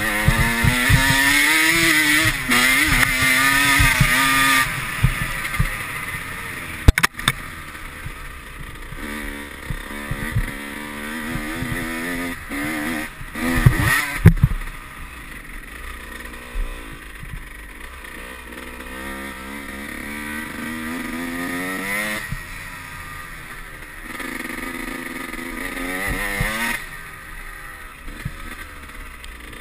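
Dirt bike engine revving up and down as it rides a trail, loudest over the first few seconds, with another hard burst of throttle about halfway through. A sharp knock comes about seven seconds in.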